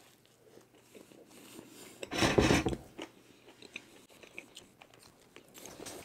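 A person biting into and chewing a chicken burger in a brioche bun, with small, wet mouth clicks. There is a louder burst of noise about two seconds in.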